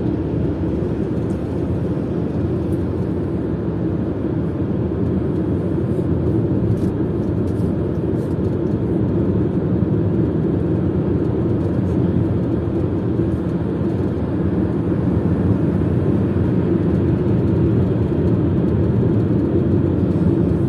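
Steady road and engine rumble heard from inside a moving car, slowly growing a little louder.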